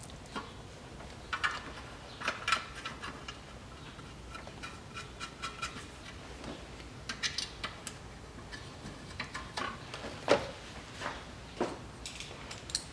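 Scattered clinks and taps of the upper timing-belt cover and its bolts being handled and set in place on the engine, a dozen or so short knocks, some with a brief ring.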